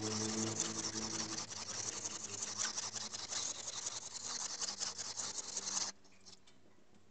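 Steel electric planer blade being rubbed back and forth on a wet sharpening stone by hand: a steady gritty scraping that stops about six seconds in.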